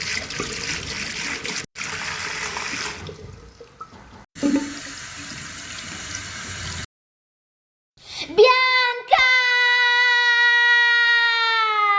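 Water running from a sink tap, in spells over the first seven seconds or so. After a short pause comes a loud, long held tone with many overtones that slides slowly lower.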